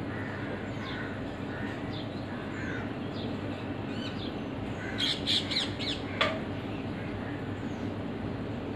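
House crows cawing: a short burst of harsh calls about five seconds in, followed by a single sharp click. Faint chirps of small birds and a steady low hum run underneath.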